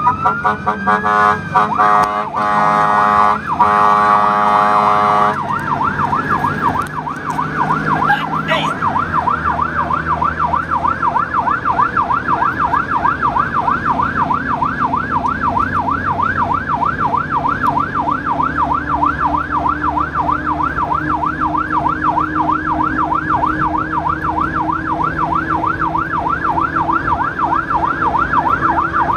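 Fire apparatus siren: a wail rising at the start, a few seconds of horn blasts with short breaks, then a fast yelp sweeping up and down over and over, over the low rumble of the vehicle's engine and road noise.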